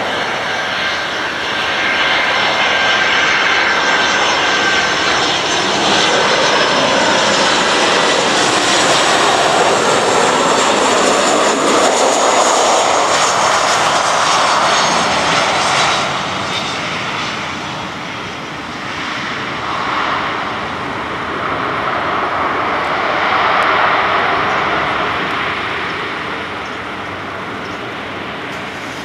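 Boeing 737-300's CFM56 jet engines passing close on landing: a loud jet noise with a high whine that glides down in pitch as the aircraft goes by. After it dips, the engine noise swells again twice during the rollout on the wet runway, then fades.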